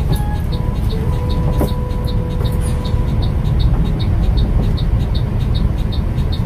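A bus engine's steady low rumble heard from inside the driver's cab, with a fast, steady high ticking over it.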